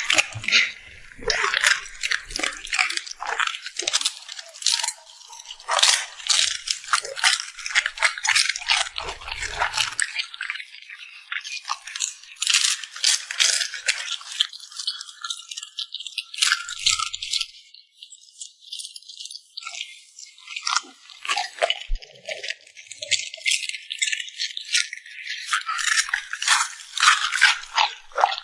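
A dog eating close to the microphone: rapid, crisp crunching and chewing clicks that go on almost without a break, thin out for a few seconds a little past the middle, then pick up again.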